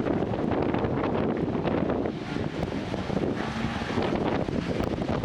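Strong wind buffeting the microphone, a steady loud rumble and roar.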